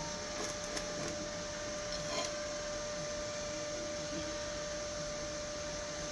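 Steady electrical hum with a single constant tone, with a few light clicks and taps in the first couple of seconds.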